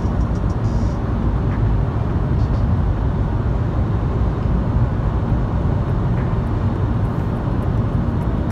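Steady low rumble of road and engine noise heard inside a moving car's cabin as it drives through a road tunnel.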